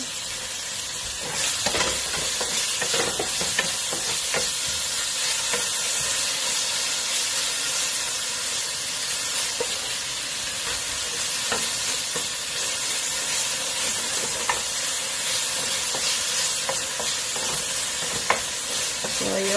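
Chicken pieces frying in oil in a pan, sizzling steadily, with a utensil stirring and scraping against the pan now and then.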